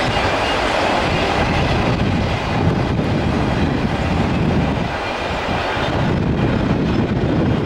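Double-stack intermodal container cars of a CSX freight train rolling past, their wheels running on the rails with a steady rumble that swells and eases.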